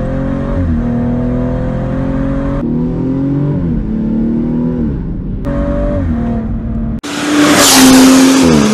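BMW M135i's tuned 3-litre inline-six (N55, stage 2) accelerating, its note climbing and dropping several times as the gearbox shifts. About seven seconds in, it switches abruptly to a louder, harsher engine sound with a rush of noise, settling lower near the end.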